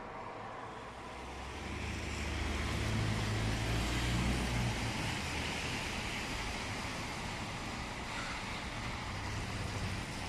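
Outdoor street ambience: a steady rushing noise with a low rumble that swells from about a second and a half in and eases off after about five seconds.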